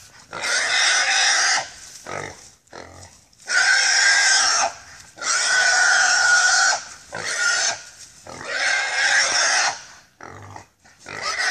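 Wild hog squealing in long, loud, repeated squeals, about a second to a second and a half each with short breaks between: the distress squeal of a hog held by a catch dog.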